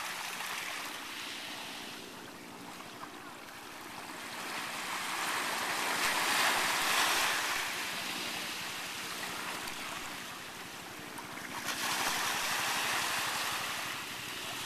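Small waves washing up a sandy beach and around a large rock in the shallows, a rushing sound that swells and fades with each wash. The biggest washes come about six seconds in and again about twelve seconds in.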